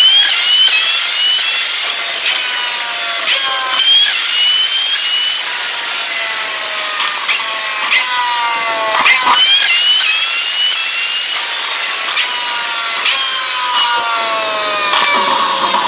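Lamborghini Aventador's V12 engine running hard on a dyno. Its high, rasping note shifts pitch in sudden steps about every second, with sharp cracks from the exhaust as it spits flame.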